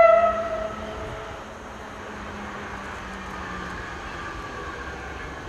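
Horn of an approaching pair of Alsthom diesel railcars: one blast, loudest at the start and fading over about a second. After it comes the steady running of the railcars' engines.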